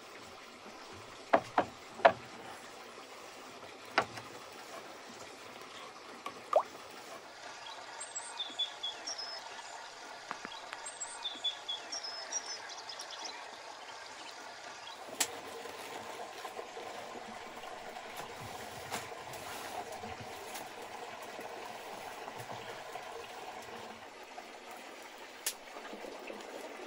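Steady rush of flowing stream water, fuller from about halfway through. Several sharp knocks come in the first few seconds, and a run of short high chirps a third of the way in.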